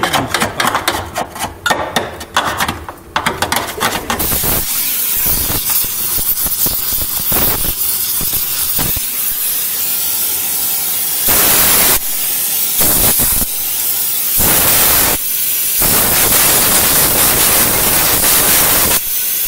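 Rapid ratcheting clicks for about four seconds. Then a gas torch heating the underside of the car's frame hisses steadily, surging louder several times in the second half.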